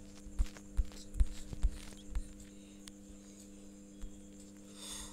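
Five low thumps in quick succession, about half a second apart, over a steady low hum. A smaller thump follows a little later, and a short soft hiss comes near the end. The thumps are handling noise from the phone that is recording as the page is scrolled and zoomed.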